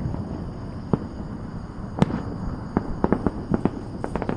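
Aerial fireworks bursting over a steady low rumble during a grand finale: a few single sharp cracks, then bangs coming quicker and quicker in the second half.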